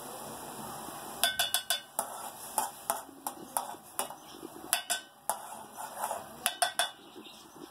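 Metal spoon clinking and scraping against a metal pot while stirring boiling instant noodles: irregular sharp clinks, several in quick runs, over a steady hiss.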